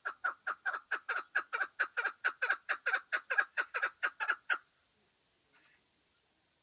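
Chukar partridge calling: a rapid run of short, repeated call notes, about four to five a second, growing louder and a little faster, then stopping suddenly about four and a half seconds in.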